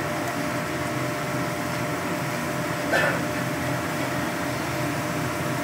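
Shredded potato deep-frying in hot oil in a steel kadai, a steady sizzle of bubbling oil, with one short sound about three seconds in. The oil is still bubbling strongly, the sign that the potato has not yet finished frying.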